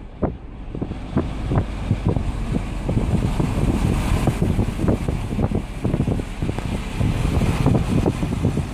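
Wind buffeting the microphone of a phone filming from a moving car, in irregular gusty thumps over a steady low rumble of the car on the road.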